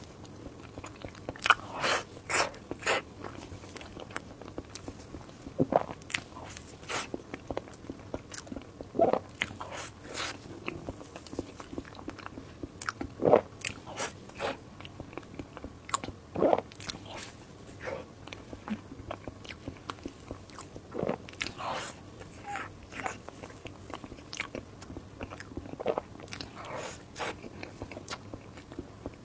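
Close-miked eating: a person biting, chewing and crunching food, with irregular sharp crunches and smacks throughout.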